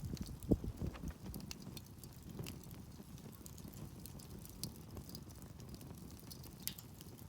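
Wood campfire crackling: scattered sharp pops and snaps over a steady low rumble, with a soft low thump about half a second in.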